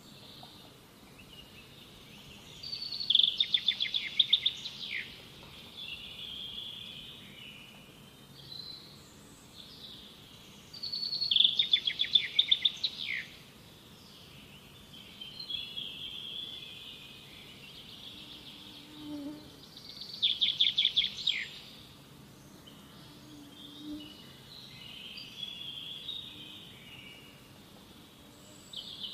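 A bird singing: three loud phrases of rapid repeated notes, each about two seconds long and about eight seconds apart, with softer chirps in between.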